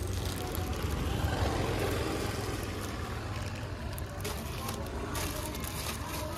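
A clear plastic bag of dry cat food rustling and crinkling as it is pulled out of a tote bag and handled, with sharper crinkles about four to five seconds in, over a steady low rumble.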